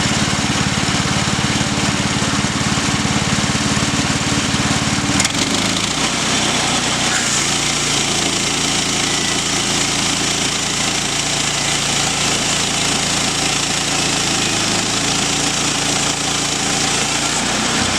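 Small petrol engine of a sawmill running steadily while milling planks, its note dropping abruptly about five seconds in and holding steady after.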